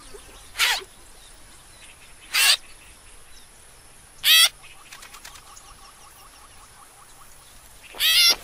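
Nestling bird chicks calling: three short, high cheeps about two seconds apart, each dropping in pitch, then a louder run of calls near the end.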